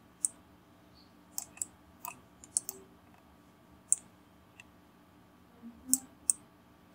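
Computer mouse and keyboard clicks: about ten sharp, light clicks at irregular intervals over a faint steady hum, made while 3D objects are being moved in Blender.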